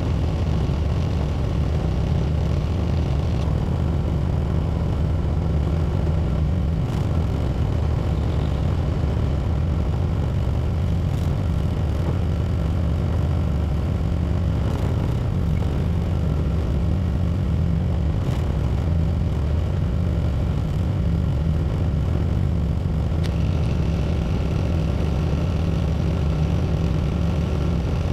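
Tractor engine running steadily while plowing snow, a constant low drone with no change in speed.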